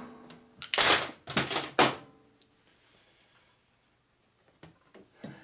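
A wooden board and tools being knocked and set down on a workbench: a quick run of about four clattering knocks about a second in, then a few faint clicks near the end.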